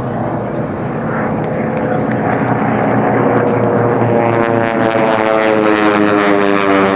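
AT-6 racing planes' Pratt & Whitney R-1340 radial engines and propellers at racing power, growing louder as a plane comes closer. From about four seconds in, one plane's engine note stands out clearly, its pitch dropping slightly as it passes.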